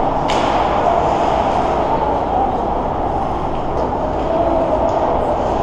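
Steady noisy drone of ice-rink ambience during a hockey game, with a few faint sharp clicks. The clearest click comes just after the start.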